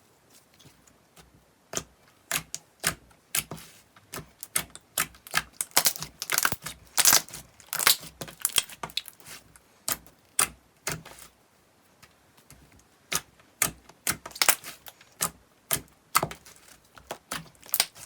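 Slime being squeezed and pressed by hand, giving irregular sharp pops and crackles that start about two seconds in and come thickest in the middle and again near the end.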